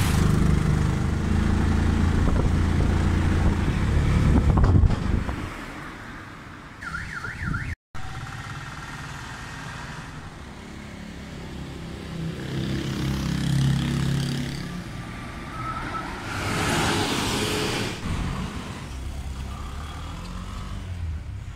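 A motor vehicle's engine runs close by, then fades after about five seconds. A brief warbling tone follows, and the rest is street traffic, with engines rising and a vehicle rushing past.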